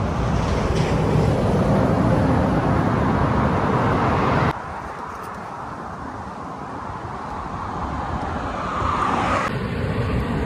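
Road traffic on a highway with rushing noise on the microphone; the noise drops suddenly about halfway, then builds as a vehicle approaches and passes with a falling pitch near the end.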